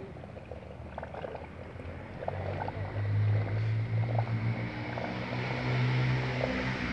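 A motor vehicle's engine running with a low, steady hum that comes up about two seconds in.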